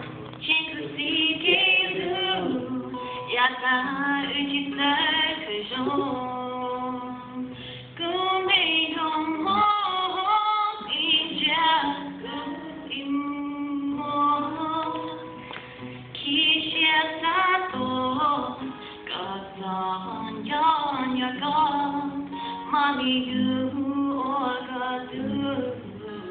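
A woman singing an emo song and accompanying herself on acoustic guitar, with held and sliding vocal notes over sustained chords.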